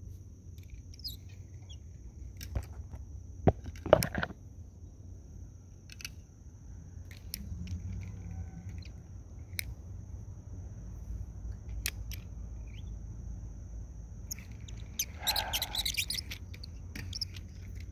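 Quiet outdoor ambience with a low steady rumble and a thin, steady high-pitched whine. Scattered sharp clicks sound through it, the loudest two about three and a half and four seconds in, and a brief rough burst comes about fifteen seconds in.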